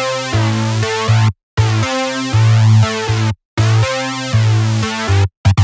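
Electronic music of sustained chords over a deep bass note, in phrases of about two seconds, each broken off by a sudden brief silence.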